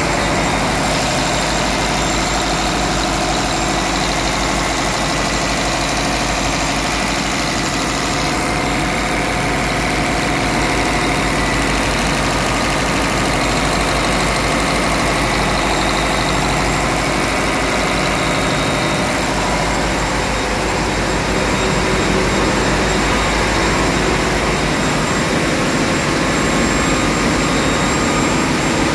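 Scania diesel engine of an auxiliary generator running steadily.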